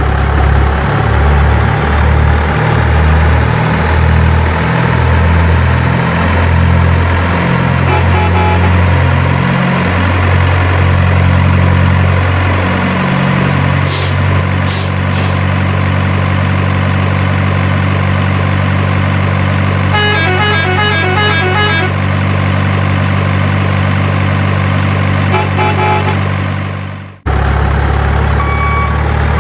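Heavy diesel truck sound effect laid over the toy trucks: a deep engine running and revving up step by step as if shifting through gears, then holding a steady drone. A few short air-brake hisses come in mid-way, and a quick run of alternating horn tones sounds a few seconds later; the engine sound cuts out sharply near the end and comes straight back.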